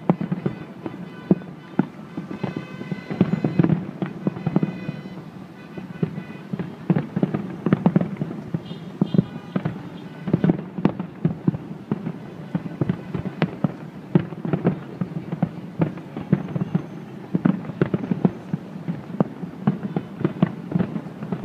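Aerial firework shells bursting in a massed display, a dense, irregular run of bangs and crackles, several a second, without a break.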